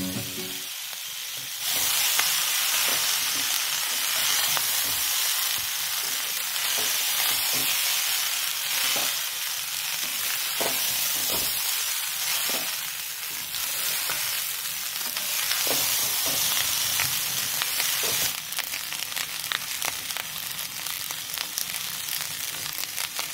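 Vegetable fried rice sizzling steadily in a hot pan while a spatula stirs it, with short scrapes against the pan over and over.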